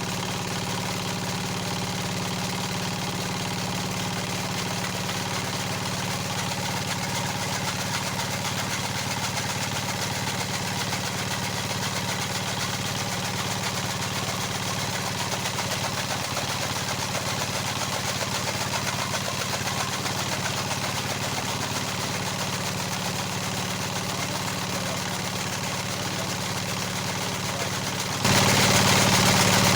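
An engine running steadily with an even hum, suddenly louder near the end.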